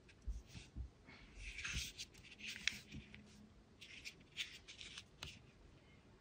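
Faint handling noise: fingers rubbing on and clicking against a small plastic electronics case with a mini fan screwed to it as it is turned in the hand, in short irregular rustles.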